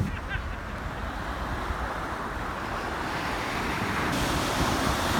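A steady outdoor rushing noise that slowly grows louder.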